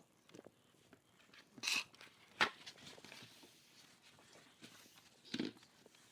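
A few scattered knocks and short rustling noises in a small room, with a sharp click about two and a half seconds in and louder rustles near the start and near the end.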